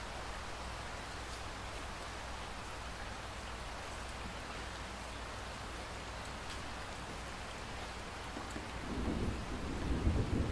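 Steady rain falling, with a few faint drop ticks. A low rumble of thunder builds about eight seconds in and is loudest near the end.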